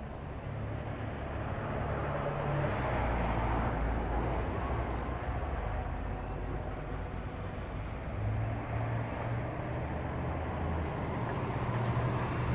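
Street traffic on a wet road: vehicles run past with a tyre hiss that swells about three seconds in. Under it runs a low hum from a SEPTA Kawasaki trolley and other vehicles approaching on the street.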